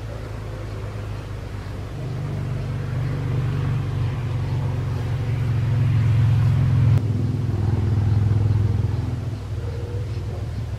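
A motor vehicle's engine passing by: a low hum that builds over the first few seconds, is loudest around the middle, and fades toward the end.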